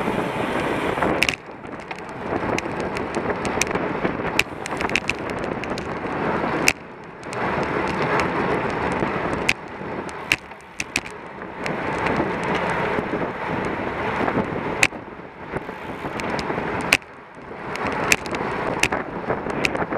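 Wind rushing over the microphone of a camera mounted on a road bicycle, mixed with the rumble of the tyres rolling on asphalt, with sharp clicks and knocks from the bike scattered through. The rush dips for a moment three times.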